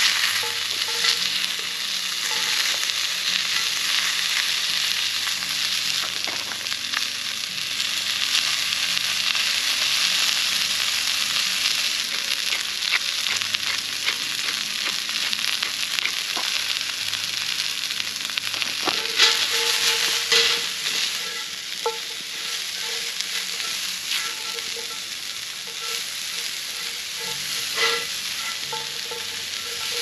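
Broccoli and carrots frying in a cast-iron skillet over a campfire, with chicken on the grill grate: a steady sizzle throughout. Scattered clicks and scrapes run through it, and metal clinks of a utensil against the pan come in the second half.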